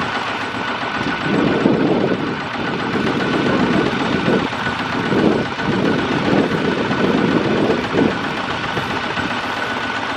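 Kubota ZT140 single-cylinder diesel engine of a two-wheel walking tractor running steadily, its note swelling and easing several times as it labours to pull a loaded rice trailer through sticky mud.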